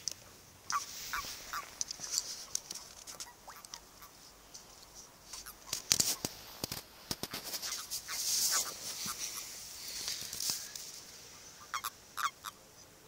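Short croaking chirps from toads in a mating ball, scattered singly and in quick little runs, with soft clicks and rustling between them.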